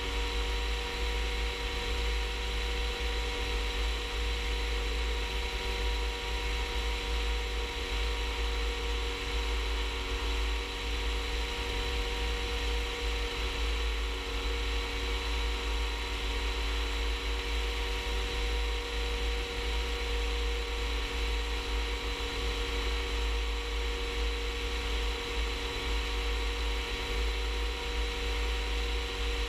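Rans S-14 ultralight aircraft in steady cruise flight: the engine and propeller drone evenly with several steady tones, over hissing airflow and a low buffeting of wind on the outside microphone.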